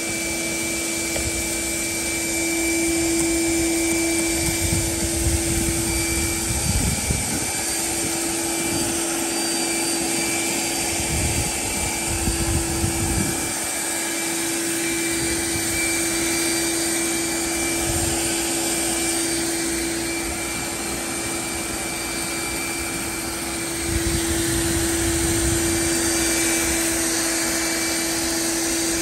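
A small motor running steadily, a constant hum under an airy rushing noise. Low rumbles of wind on the microphone come and go several times.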